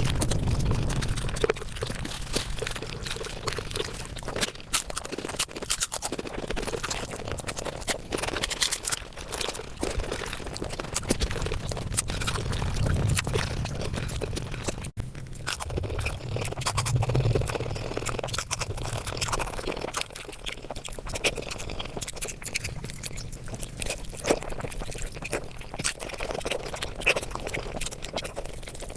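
Mukbang eating sounds played at five times speed: a dense, rapid run of chewing, smacking and wet mouth clicks from eating curry and rice, broken by a very short gap about halfway.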